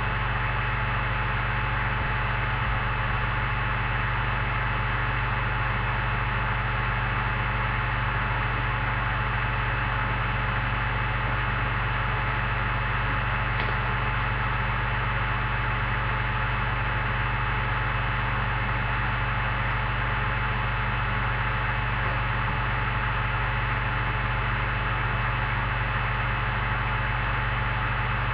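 Steady electrical hum with a constant hiss, unchanging throughout, with no chewing or other sound standing out above it.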